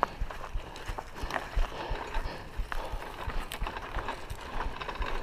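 Raleigh Ascent mountain bike rattling over a rough, dry dirt track: irregular clicks and knocks from the bike and tyres bumping over the ground.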